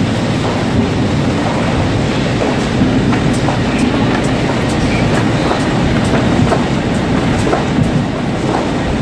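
Sansin five-colour flexo printer for corrugated carton board running in production: a loud, steady machine noise with a dense, irregular clatter of clicks as printed board sheets feed through onto the delivery conveyor.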